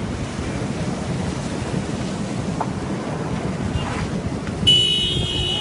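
Steady rushing of floodwater, with wind on the microphone. About 4.7 s in, a high steady tone sounds for just over a second.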